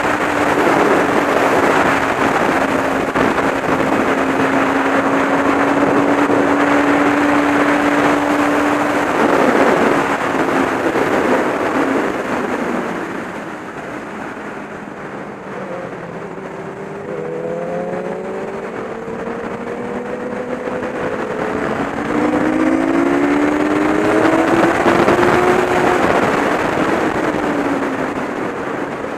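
Onboard sound of a racing motorcycle at speed: engine running at a steady pitch under heavy wind rush. About halfway through it eases off and goes quieter, then its pitch climbs in several steps as it accelerates through the gears.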